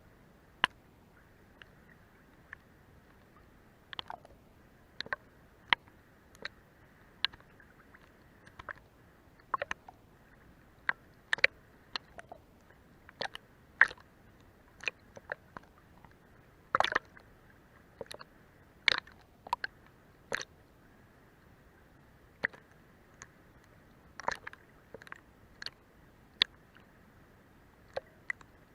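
Sea water lapping under a boat's hull: irregular small slaps, clicks and plops, roughly one a second and sometimes in quick clusters, over a faint steady wash.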